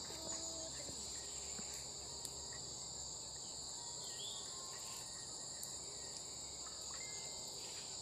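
Steady chorus of crickets at dusk, an unbroken high-pitched drone on two pitches.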